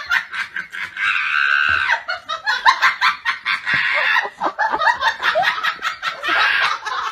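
A person laughing hard in rapid, choppy bursts.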